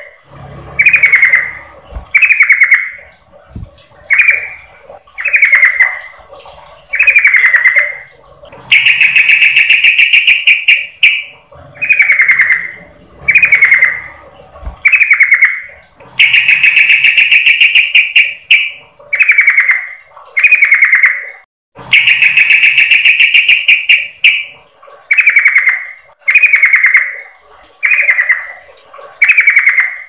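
Yellow-vented bulbul (trucukan) calls, presented as a female's lure call to males. Short rattling notes drop in pitch and repeat about once a second, broken three times by a longer, steadier rattling call of about two seconds.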